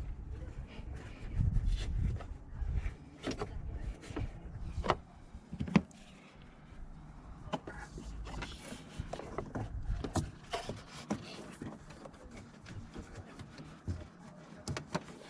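Scattered clicks and knocks of hands handling car parts and tools, one sharper knock about six seconds in, over a low uneven rumble.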